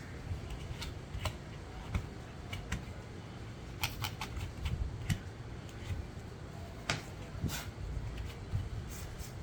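Irregular small clicks and light scrapes of dust being cleaned out of a laptop's cooling fan, with sharper clicks around the middle of the stretch, over a low background rumble.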